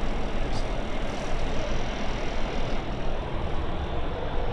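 Steady in-flight cockpit noise of an Airbus A321 on approach to landing: an even rushing noise with a low rumble underneath.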